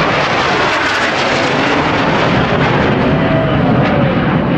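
Two Blue Angels F/A-18 Hornet jets flying over in formation, their twin jet engines making a loud, steady rushing roar.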